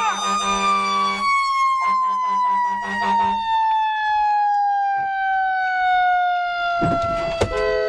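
Fire truck siren winding down, its single tone falling slowly in pitch throughout. A low pulsing horn sounds in two stretches over the first few seconds, and near the end a short noisy burst is followed by a steady horn tone.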